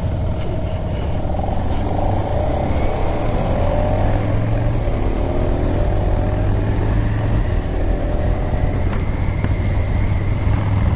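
Motorcycle engine pulling away and accelerating, its pitch climbing twice as it shifts up a gear, over a steady low rumble and wind noise on the helmet microphone.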